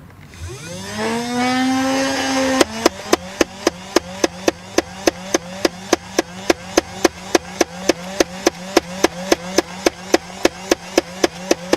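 Nerf Rival MXVI-4000's battery-powered flywheel motor spinning up with a rising whine, then, about two and a half seconds in, firing foam balls on full auto. Each shot is a sharp crack, about four a second, over the steady motor whine. The motor tone drops a little once firing starts, as the drive wheel takes the load.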